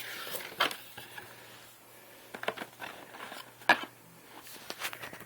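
Hands opening a cardboard product box and handling the packaging inside: scattered crinkles, rustles and light clicks, with one sharper click about two-thirds of the way through.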